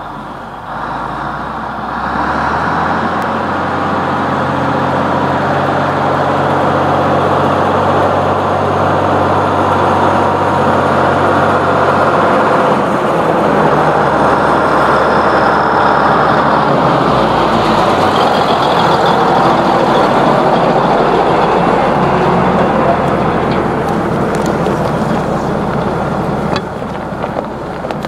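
Allis-Chalmers 8550 four-wheel-drive tractor's diesel engine running as the tractor drives up to the microphone and over it. The engine grows louder as it nears, holds loud through the middle, and drops off somewhat near the end.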